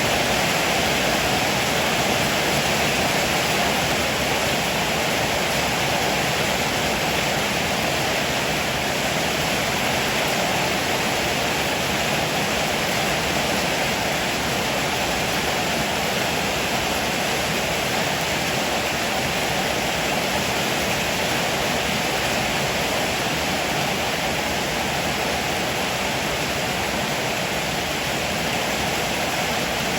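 Heavy rain pouring steadily, an even hiss with no thunder claps or other sudden sounds.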